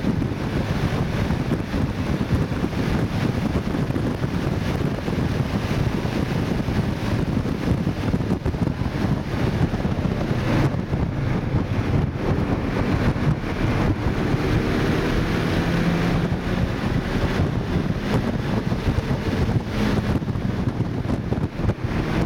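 Inside the cabin of a 2012 Mini Cooper S lapping a race track: a loud, steady rush of wind, road and tyre noise. The turbocharged 1.6-litre four-cylinder engine is heard under load beneath it, its note faintly rising partway through.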